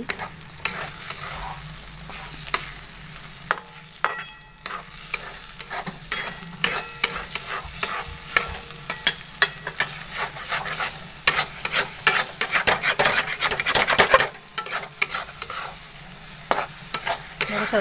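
Flat metal spatula repeatedly scraping and stirring egg masala around a metal kadhai, the oil sizzling underneath on low heat. The scrapes come thickest a few seconds before a brief pause near the end.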